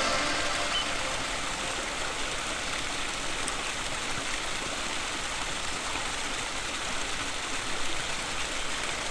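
Small waterfall splashing into a rock pool: a steady, even rush of falling water.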